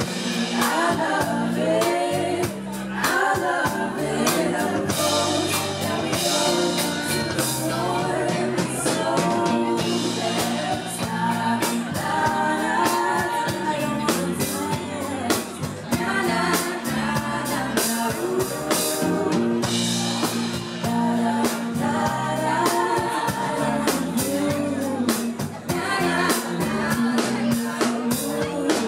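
Live band music: two female vocalists singing into microphones over electric bass, electric guitar and drum kit.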